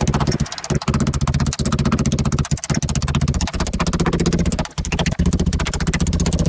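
Meat mallet pounding a butterflied pork ham roast on a wooden cutting board: a rapid, continuous run of blows, broken by a few short pauses.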